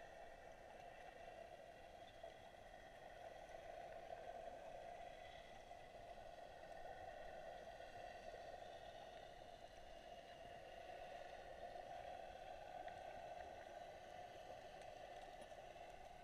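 Near silence underwater: a faint steady hum, with faint, slowly wavering tones above it.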